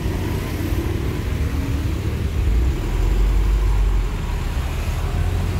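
Steady low outdoor rumble, swelling a little in the middle.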